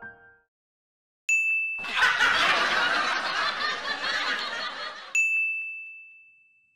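A bright bell-like ding, then about three seconds of crowd laughter. A second ding cuts in as the laughter stops and rings out, fading away. These are title-card sound effects.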